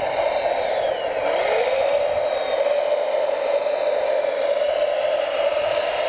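Steady whine of a radio-controlled construction machine's motor and hydraulic pump. Its pitch dips sharply about a second in, as if briefly loaded, then slides back up and holds steady.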